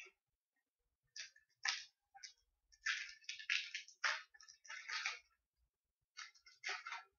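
Magic: The Gathering booster pack's foil wrapper crinkling and tearing in irregular bursts as the pack is handled and ripped open, starting about a second in.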